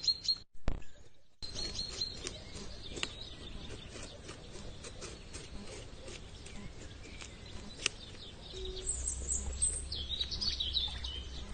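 Birds chirping over a run of scattered short crunching clicks, the sound of a beaver gnawing wood. The sound drops out briefly about half a second in, and a low rumble joins near the end.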